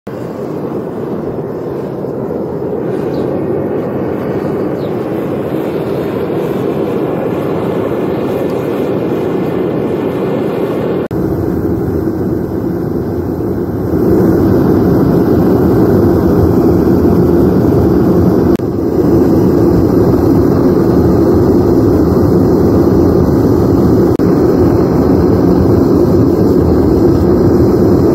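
The fire of a DIY kiln running hot during cupellation of a lead button, a loud, steady rushing noise. The level jumps at splices about 11, 14 and 19 seconds in.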